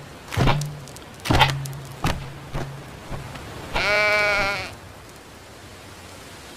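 A few hollow thumps, each fainter than the last, as a ball-round cartoon ibex bounces away over rock. About four seconds in, the remaining round ibex gives one shaky, wavering goat bleat lasting about a second.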